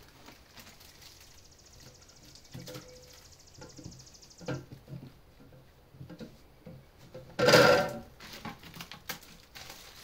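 Plastic packing material rustling and crinkling, with light clicks and knocks, as it is pulled from the plastic shelves of a new mini fridge; one loud crinkle about seven and a half seconds in. A steady high-pitched buzz runs through the first four seconds or so.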